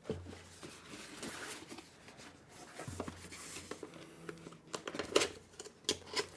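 Packaging being handled: plastic and foam wrap rustling and crinkling, with scattered small clicks and knocks.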